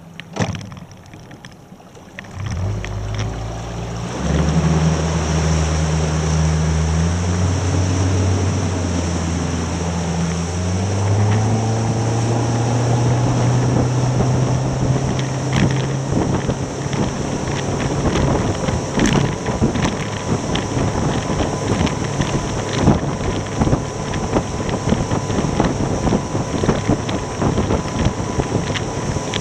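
Outboard motor on a rigid inflatable boat opening up from near idle. Its note climbs in several steps over the first ten seconds or so, then holds steady at speed. The wind and water rush grows as the boat gathers speed, with wind buffeting the microphone.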